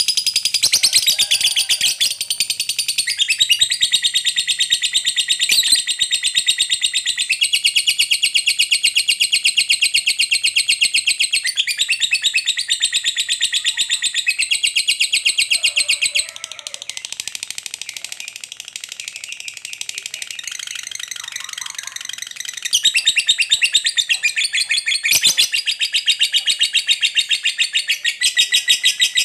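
Lovebird singing its long "ngekek": an unbroken, very rapid high-pitched chattering trill. It softens for several seconds past the middle, then comes back loud.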